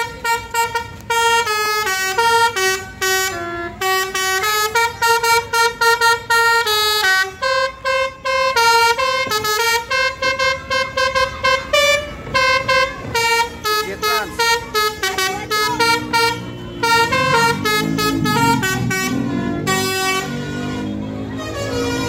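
A tour bus's 'telolet basuri' musical horn, a set of horn trumpets playing a fast tune of short, loud notes again and again. A lower wavering sound joins under the tune from about two-thirds of the way in.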